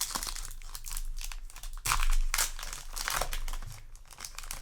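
Foil trading-card booster pack wrapper crinkling as it is torn open, with the loudest crackling about two seconds in.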